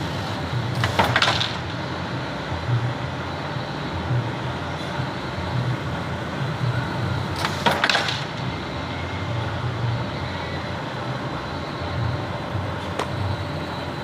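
Factory machinery running with a steady, pulsing low hum, broken by a short, loud noisy burst about a second in and again around eight seconds in.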